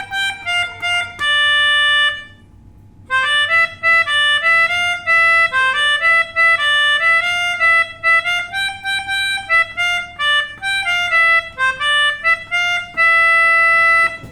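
Pianica (melodica) blown by air from a balloon, playing a bus 'telolet' horn tune in quick short notes, often two pitches together. It stops for about a second near the start and ends on one long held note.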